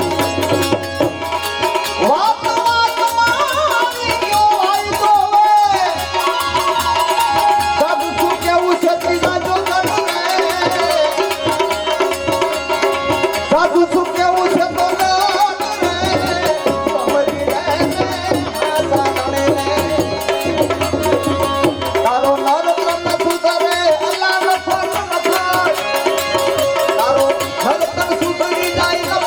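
Santvani devotional folk music: tabla keeps a steady rhythm under a sustained, continuous melody.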